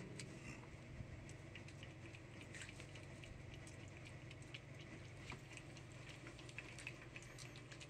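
A cat licking Churu paste from a squeezed treat tube: faint, irregular wet licking clicks and smacks, over a low steady hum.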